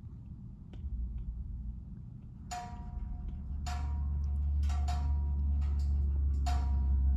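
Film soundtrack heard through a cinema's speakers: a deep low drone swelling steadily louder, joined about two and a half seconds in by sharp ringing hits, roughly one a second.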